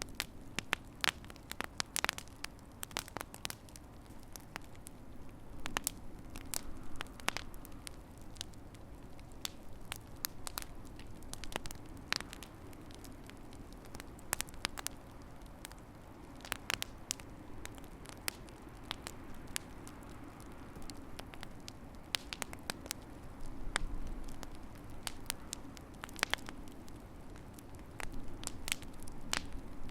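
Fireplace fire crackling: irregular sharp snaps and pops over a steady low rumble.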